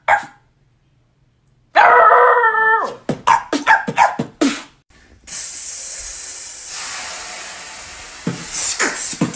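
Beatboxing: a howl-like, dog-imitating vocal call, then a fast run of mouth-percussion clicks and snares. This is followed by a long hiss of about three seconds that slowly fades, and more percussive hits near the end.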